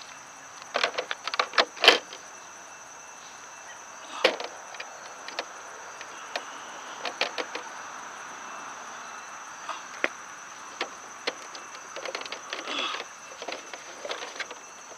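Plastic clicks and knocks of an electric RC hydroplane's hatch cover being handled and pressed into place on its plastic hull, in scattered bunches.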